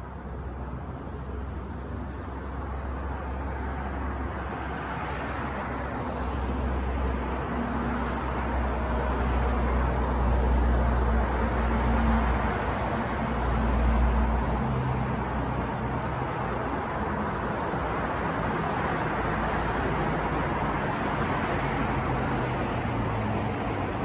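City street traffic: a steady wash of road noise in which a heavy vehicle's low engine rumble builds, is loudest about halfway through, then eases off.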